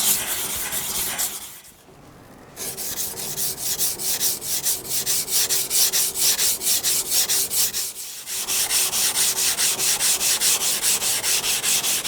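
Kitchen knife blade being ground on a coarse 150-grit Naniwa Lobster whetstone in quick back-and-forth strokes, about four a second, pausing briefly about two seconds in and again near eight seconds. It is steel being removed to grind out the blunt edge left by a repair.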